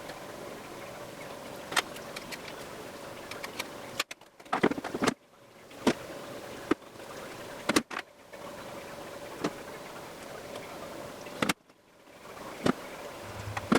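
Scattered sharp clicks and taps from the small parts of a Sony Handycam HDR-XR160 camcorder being handled during reassembly, about ten in all, over a faint steady hum.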